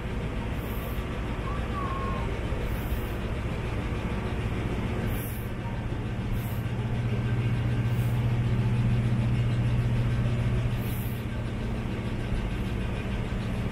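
Diesel locomotive engine of a tourist train running with a steady low hum, growing louder for a few seconds in the middle as the train starts away from the station.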